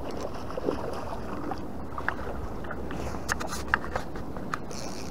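Water lapping against the hull of a small aluminum boat on the lake, with several light clicks and knocks on the boat about midway through.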